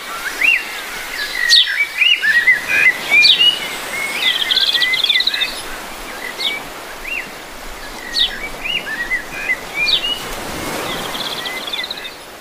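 Birds calling among trees: repeated short whistled chirps and sharp notes, with a quick trill twice, over a steady hiss of outdoor noise.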